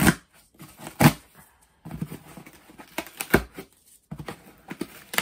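A cardboard parcel being torn open by hand: several sharp rips of tape and cardboard, loudest about a second in and again just past three seconds, with rustling and crinkling of the packaging in between.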